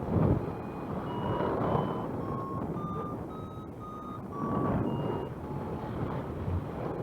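Flight variometer beeping in lift, short beeps about twice a second whose pitch climbs and then drops again: the climb strengthens, then fades. Wind rushes over the microphone, gusting near the start and again midway.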